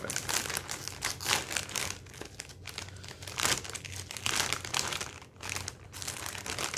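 A Cheetos snack bag crinkling irregularly as it is handled and pulled open by hand.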